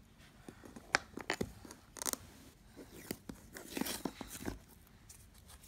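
Small handling noises: scattered light clicks, taps and short scrapes as a child fiddles with a wooden puzzle piece and plastic toy cars, busiest a little past the middle.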